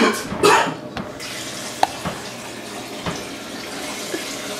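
Kitchen tap running steadily into the sink, starting about a second in, with a few small knocks against the sink.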